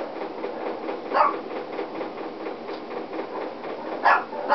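A steady machine-like hum in the room, with two short rising calls from an animal, about a second in and again near the end.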